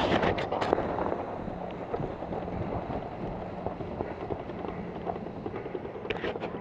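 Wind buffeting a body-worn camera's microphone, with scattered small clicks and rustles that bunch up at the start and again near the end.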